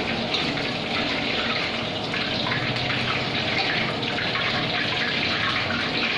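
Marinated chicken pieces deep-frying in hot oil, a steady even sizzle.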